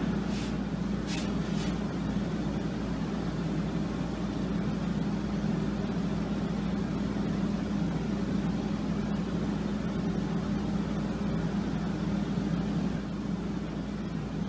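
Steady low mechanical hum of shop machinery, with a few light clicks in the first couple of seconds as wooden brace strips are laid out on a guitar back.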